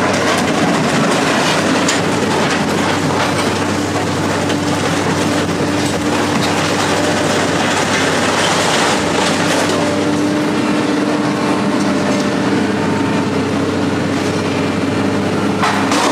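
Heavy machinery running steadily with a low hum and continuous rattling and clanking.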